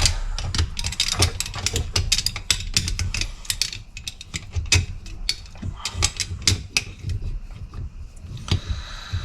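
Metal clicking and clinking from hand tools and tractor hydraulic valve parts while a valve section is worked loose: many quick irregular taps, thinning out near the end.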